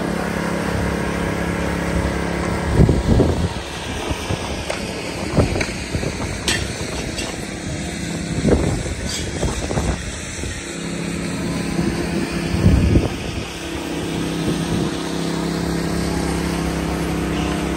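Steady drone of small petrol engines running at constant speed: power trowels floating a fresh concrete slab. A few loud low rumbles of wind buffet the microphone.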